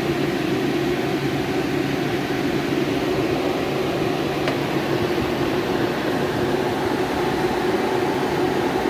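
Freezer running while being charged with refrigerant: its compressor and condenser fans make a steady hum with a rush of air.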